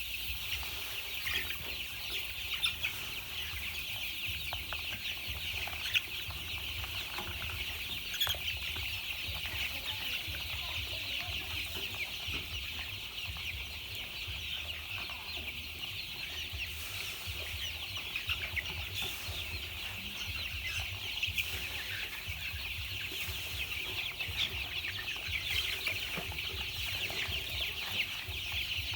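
A crowd of young chicks peeping continuously, many short high-pitched calls overlapping into a steady chorus.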